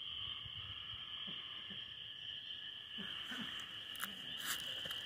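Steady high chirring of a night insect chorus, with two brief clicks about four seconds in.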